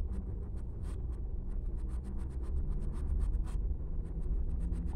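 Paintbrush scratching and dabbing on cotton fabric: a run of quick, irregular scratchy taps as paint is worked on in small touches, over a low steady hum.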